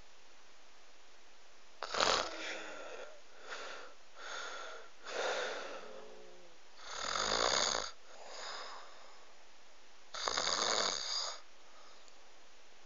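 Snoring: about two seconds in, a string of irregular rough snores and wheezy breaths begins, the longest and deepest near the middle and another about ten seconds in, followed by a pause.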